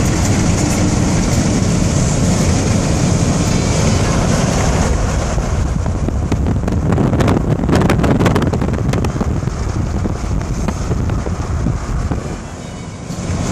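Steady road and wind noise inside a car cruising at highway speed. It gets louder and choppier for a few seconds in the middle and dips briefly near the end.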